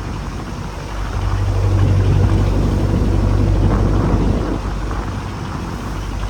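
A boat engine running steadily under wind and sea noise, its low hum swelling and easing slightly.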